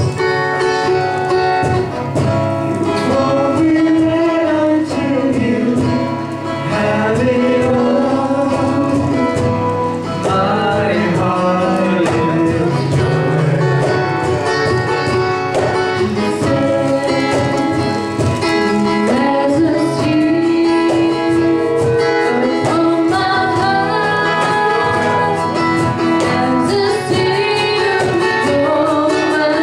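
Church worship team singing a worship song, led by women's voices over instrumental accompaniment, running steadily without a break.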